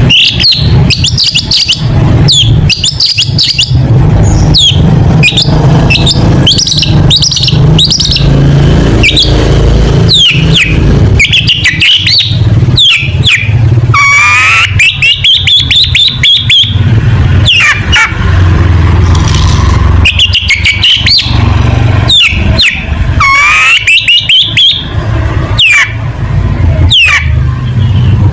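Long-tailed shrike (cendet) singing loudly in full song: a fast run of sharp, downward-sweeping notes, with two longer buzzy trilled phrases, one about halfway through and one near the end, all over a steady low hum.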